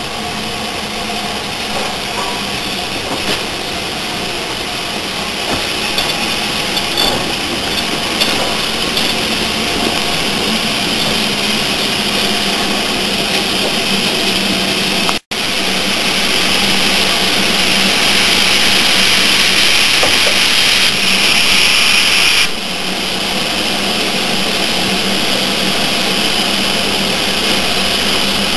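LMS Fairburn 2-6-4T tank steam locomotive drifting slowly into a station with a steady rushing hiss and a few light clanks, then standing with steam hissing loudly. The hiss is louder for several seconds after the halfway point and drops back about three quarters of the way through. The sound cuts out for an instant about halfway.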